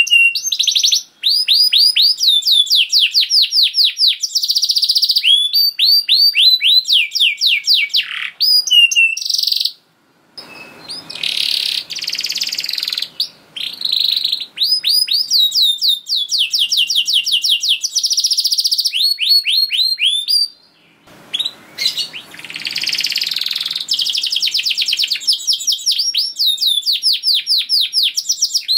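Domestic canary singing a long, loud song of rapid trills: fast runs of repeated rising notes, broken twice briefly about ten and twenty seconds in, each time resuming with a rougher, buzzier passage.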